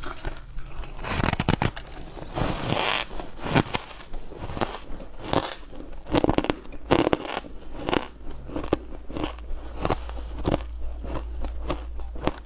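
Close-miked biting and chewing of frost-covered white blocks: repeated crisp crunches and crackles.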